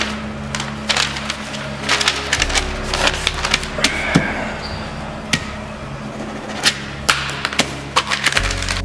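Sheets of paper being handled, signed and flipped together, a string of sharp crinkles, snaps and clicks, over a low sustained music score.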